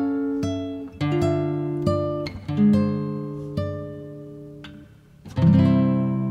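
Background music: an acoustic guitar picking single notes and chords that ring and fade, with a louder strummed chord about five seconds in.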